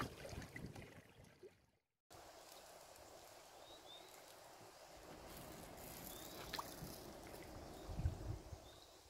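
Small lake waves lapping against shore rocks with wind, fading out within the first two seconds. After a brief silence, faint outdoor lake ambience with a few short high chirps and a soft low bump near the end.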